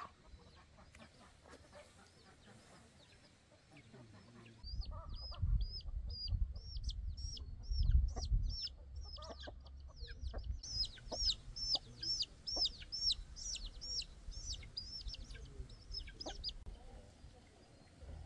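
Chickens calling: a long run of short, high peeping calls, about three a second. The calls grow clear about four and a half seconds in, crowd together later on and stop a couple of seconds before the end, over a low rumbling noise.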